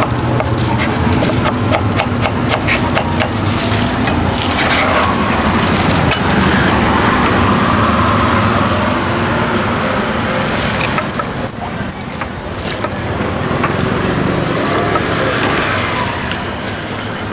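Street traffic noise with vehicles passing. A knife clicks as it cuts eggplant on a plastic cutting board during the first few seconds, and there are a few sharp knocks a little past the middle.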